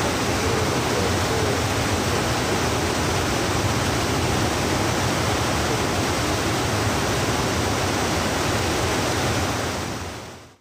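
Fast-flowing stream water rushing with a steady, even hiss that fades out near the end.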